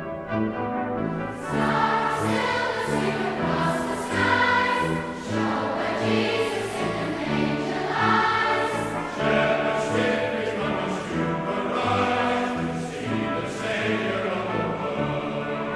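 Choir singing with brass and orchestral accompaniment, a piece of Christian choral music.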